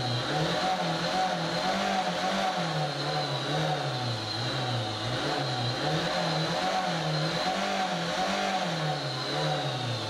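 Old Mercedes-Benz Vito diesel van's engine heard from inside the cab while driving, its pitch rising and falling over and over every second or two, with a steady high whine above it.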